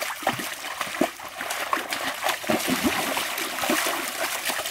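Irregular splashing of shallow stream water as a person wades through it and works with her hands in the water.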